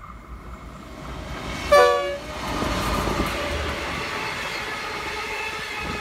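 Diesel locomotive's horn giving one short, loud blast about two seconds in, then the locomotive and its passenger carriages passing close by with a steady noise of wheels on rails.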